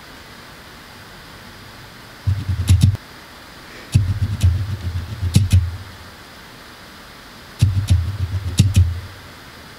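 Real Techniques makeup sponge dabbed against the face to blend liquid foundation: three short spells of dull, low thumping with a few light clicks, separated by pauses.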